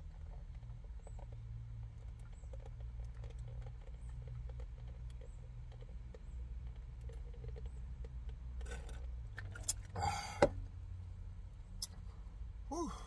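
Sipping a drink through a straw from a large paper cup: faint small clicks and sucking noises, with two short louder slurps about nine and ten seconds in. A steady low hum runs underneath, and a brief pitched vocal sound that rises and falls comes near the end.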